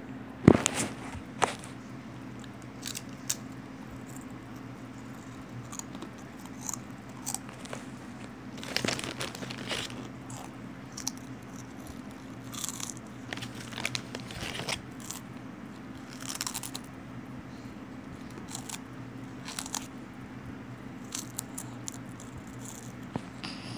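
Potato chips being bitten and chewed: short crisp crunches on and off, with a sharp knock about half a second in as the loudest sound. A faint steady low hum runs underneath.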